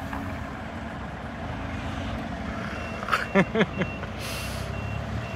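Scania S650's 16-litre V8 diesel idling steadily, with a reversing beeper starting a little past halfway and sounding about twice a second. A brief pitched sound about three seconds in.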